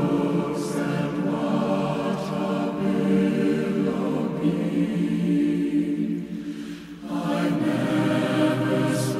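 Slow choral music: a choir singing long, held chords, dipping briefly about two-thirds of the way through before the voices swell back in.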